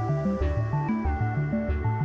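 Background music with a quick, steady bass pattern, about four notes a second, under held higher notes that step to new pitches.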